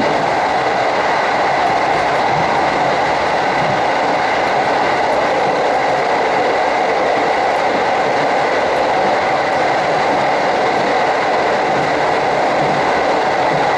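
Steady running noise of a JR New Chitose Line train in motion, heard from inside the passenger car.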